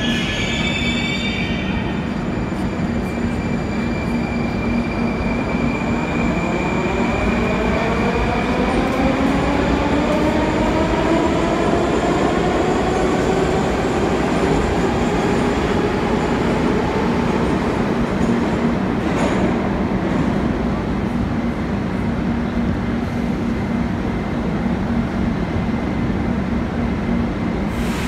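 Moscow Metro train accelerating along a station platform: a steady rumble from the wheels and running gear, with the electric traction motors' whine rising in pitch from about a fifth of the way in until past the middle, then fading out while the rumble goes on.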